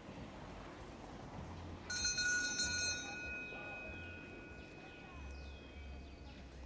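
A bell-like ringing starts suddenly about two seconds in. It is loud for about a second, and then a couple of its tones hang on, fading, for a few more seconds, over low outdoor background noise.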